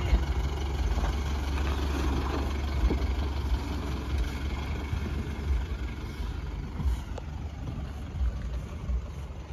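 Tata Safari SUV engine running with a steady low rumble as the vehicle is driven over rough off-road ground.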